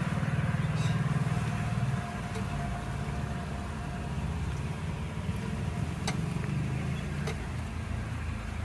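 Tata Altroz running with a steady low rumble, louder for the first two seconds, with a few sharp, irregular clicks from the rear wheel.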